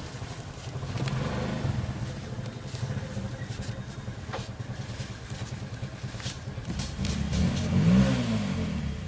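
A motor vehicle engine running steadily, with a vehicle passing close near the end, its pitch rising and then falling as it goes by.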